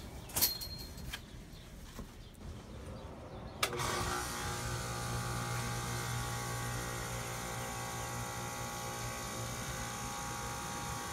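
A few light clicks, then a sharp click about three and a half seconds in as an ICP condensing unit is powered on. The unit then runs steadily with a low hum as its new 1/12 horsepower condenser fan motor spins up.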